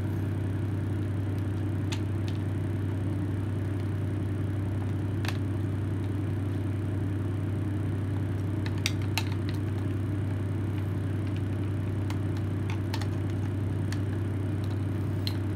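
A steady low hum runs throughout, with a few short, light clicks and ticks over it as the screws of a cordless impact driver's plastic housing are worked loose by hand.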